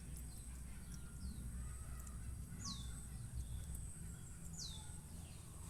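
A bird calling with short, high whistles that sweep downward, repeated every second or two, over a low rumble and a thin steady high tone.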